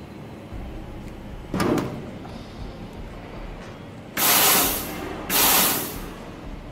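Two short, loud hissing blasts of compressed air, each lasting well under a second and about half a second apart, near the end; a single thump comes about a second and a half in.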